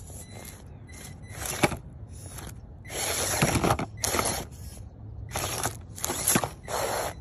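Traxxas TRX4M 1/18-scale crawler's small electric motor and geared drivetrain whirring in short, stop-start bursts of throttle, with tyres scraping over plants and dirt; the longest burst comes about three seconds in.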